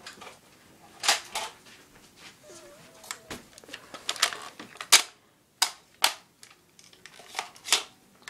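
Sharp plastic clicks and clacks at irregular intervals, about ten in all, from a Nerf Spectre blaster being shot and handled.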